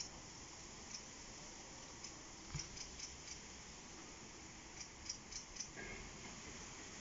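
Faint, short, clicking bird calls in small quick groups of three or four, with a brief higher note about six seconds in, over a steady faint background hiss.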